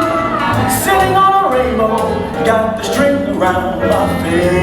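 Music: a band playing with a singer, the notes held and moving from pitch to pitch.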